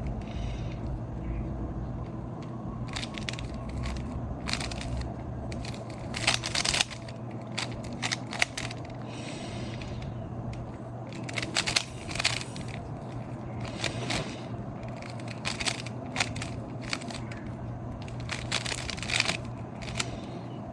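Plastic 3x3 speed cube being turned rapidly by hand: bursts of quick clicking and clacking as the layers snap round, broken by short pauses, over a steady low hum.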